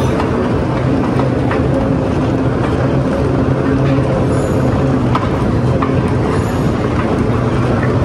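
Moving walkway running: a steady low mechanical hum and rumble with a few faint clicks.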